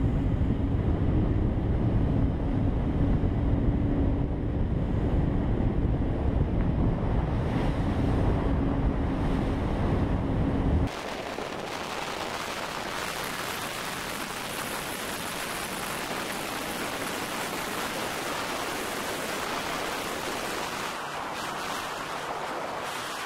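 Patrol boat running at high speed: for about the first eleven seconds a loud low rumble of wind buffeting the microphone and water rushing past the hull, with a steady low drone under it. It then cuts suddenly to a quieter, even rushing hiss of spray and wake as a planing patrol boat passes.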